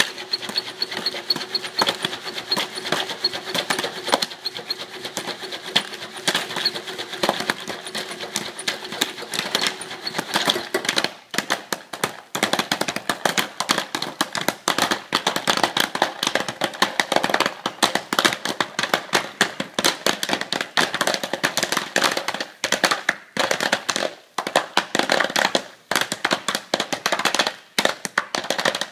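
Popcorn kernels popping rapidly inside a Jiffy Pop foil pan on the electric burner, a dense crackle of sharp pops as the foil dome swells. A steady hum runs beneath the pops for about the first ten seconds; after that the pops come with short gaps between them, thinning toward the end.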